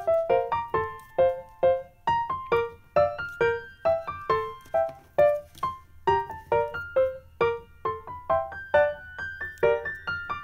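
Background piano music: a quick, even run of short separate notes, several a second.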